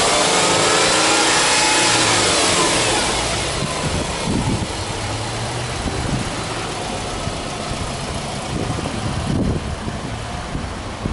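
Subaru Impreza 15S's 1.5-litre flat-four boxer engine free-revving with no load, held at raised revs and then dropping back to a steady idle about three seconds in.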